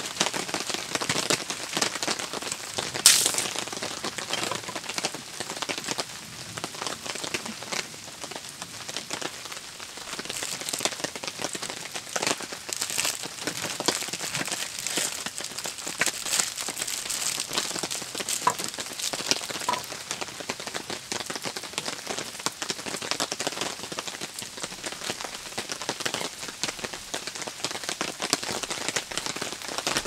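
Steady rain falling, a continuous hiss dotted with many small, sharp drop impacts. A single sharp knock stands out about three seconds in.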